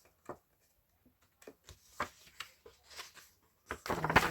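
Paper rustling and soft clicks as a printed receipt and packaging papers are handled, with a louder rustle near the end.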